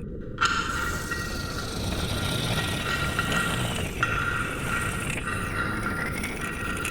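Steady rumbling noise bed overlaid with electronic sci-fi 'alien' sounds: sustained synthetic tones and slow gliding whines, entering suddenly about half a second in.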